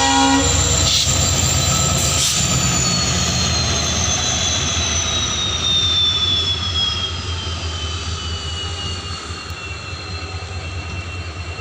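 WDP-4B diesel locomotive: a horn blast cuts off about half a second in, then its EMD two-stroke engine runs with a low drone and a high whine that slowly falls in pitch as the sound gradually fades.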